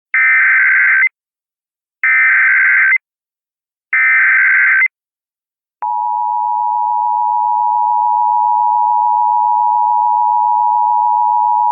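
Emergency Alert System SAME header: three bursts of about a second each of screeching digital data tones. Shortly after, the steady two-tone EAS attention signal starts and holds.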